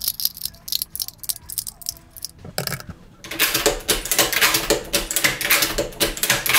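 Bolt-action hunting rifle's bolt worked by hand, feeding cartridges from a homemade nine-round magazine made of two epoxied magazines: a feed test of the extended magazine. A few scattered clicks at first, then from about three seconds in a fast, dense run of clicks and rattling.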